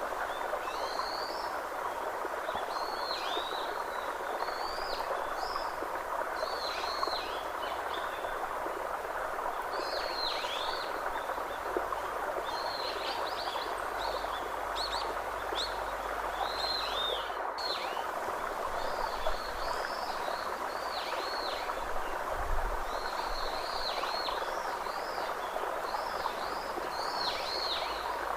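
Birds chirping over a steady rush of running water. The calls are short, high, arching notes, repeated many times a second or so apart.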